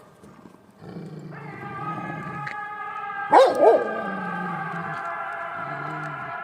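Kangal dog barking twice in quick succession, loud and short, about halfway through, over steady background music that starts about a second in.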